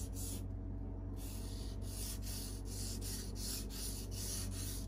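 Carbon-steel blade of a Mora Companion knife scraped back and forth across a wet 1000-grit whetstone in short, quick strokes, about three a second after a short pause near the start, honing the tip.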